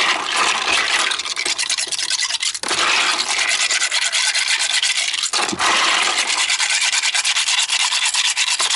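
Wet, soapy hands rubbing and scrubbing small plastic puzzle pieces in warm water, washing the grease off them: a continuous rasping rub of quick strokes, with two short breaks.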